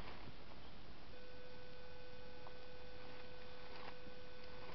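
German shepherd digging in dirt, with faint scratching and a few light clicks of paws in soil, over a steady hiss. A steady thin whining hum comes in about a second in and holds.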